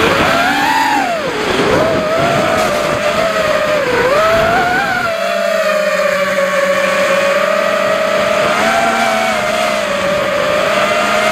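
Realacc XS220 FPV racing quadcopter's motors and propellers whining, heard from its onboard camera. The pitch swoops up and down with the throttle for the first few seconds, then holds nearly steady from about five seconds in.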